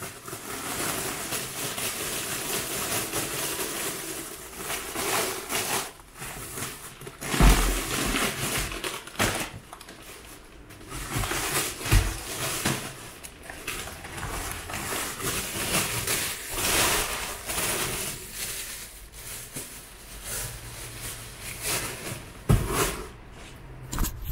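Plastic shopping bag and snack wrappers rustling and crinkling as groceries are unpacked on a counter, with a few dull thumps, the loudest about seven and a half seconds in.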